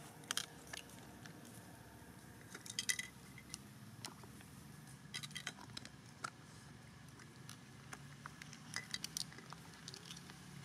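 Sharp clicks and ticks in small clusters, about five times, over a faint steady low hum.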